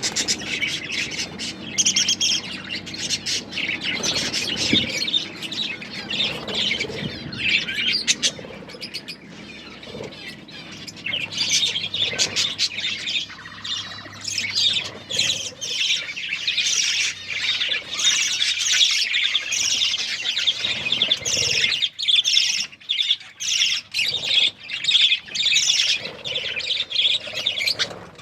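Pet budgerigars chirping and chattering continuously, a dense stream of short, high chirps that eases briefly about a third of the way in.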